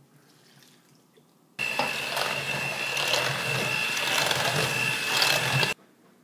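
Electric mixer running, beating cookie dough after the milk is added: it starts suddenly about a second and a half in, runs with a steady whine for about four seconds, and cuts off sharply.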